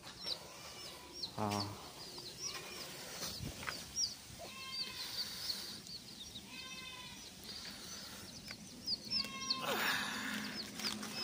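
Birds chirping: many quick high chirps repeating all through, with a few lower, fuller calls about four and a half, seven and nine seconds in.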